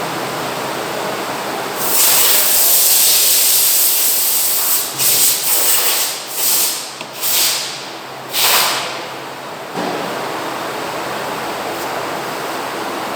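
Pressurised spray hissing, used to wash motorcycle front fork parts: one long burst of about three seconds, then five short bursts. A steady, quieter hiss runs underneath.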